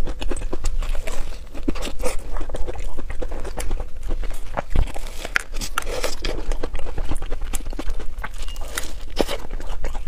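Close-up chewing and biting of a crumb-topped cream puff with a vanilla cream filling: many small, irregular crisp clicks and crunches of the crust, over a steady low hum.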